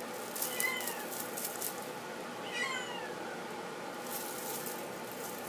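Flame point Himalayan kitten meowing twice: short, high-pitched mews that fall in pitch, the first about half a second in and the second about two and a half seconds in.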